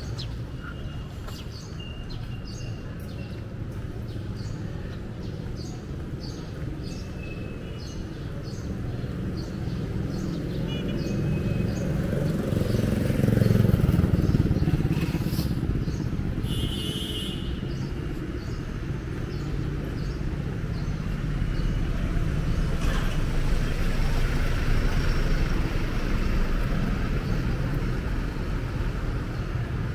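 Street traffic on a wet road: motorcycles and cars going by, with one motorcycle passing close and loudest about halfway through. Small birds chirp in the first third.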